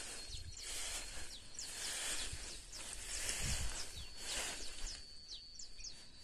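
Footsteps swishing through tall dry grass, a rustle every half second or so, with a dull bump about three and a half seconds in. Small birds chirp in short high notes over a steady, thin, high tone.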